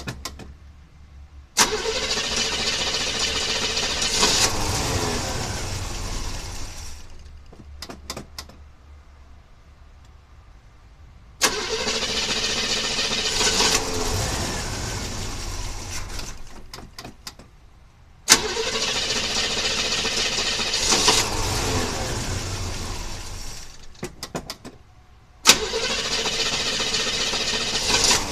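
1976 Chevy Blazer engine cranked over by its starter four times, in bursts of about five seconds that each begin sharply and tail off, with short pauses and a few clicks between. These are start attempts just after the spark plugs were swapped for used ones.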